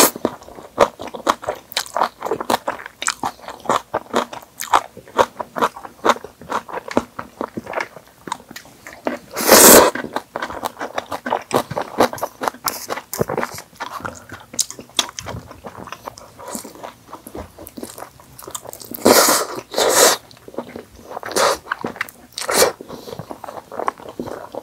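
Chewing and biting with many small wet clicks and crunches, from eating sauced fried chicken and noodles. Louder slurps break in about ten seconds in and again around twenty seconds.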